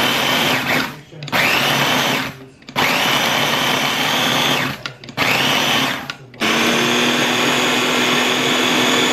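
Ninja food chopper grinding Oreo cookies into fine crumbs. It runs in pulses of one to two seconds, each spinning up with a rising whine and cutting off sharply, then runs steadily through the last few seconds.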